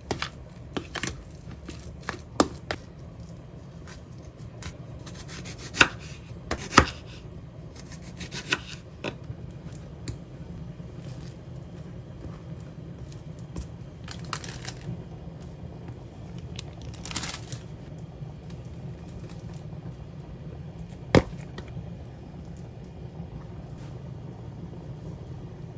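A fork knocking and scraping against a plastic food container while mashing boiled eggs, then utensil and hand handling of bread on a plastic sheet. Scattered sharp clicks and taps, the loudest about a quarter of the way in and one near the end, with a few short scrapes around the middle, over a low steady hum.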